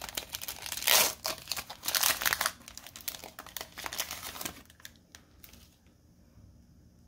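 Foil wrapper of a Panini Prizm Draft Picks trading-card pack crinkling and tearing as it is opened by hand, a dense run of crackles that dies away about four and a half seconds in.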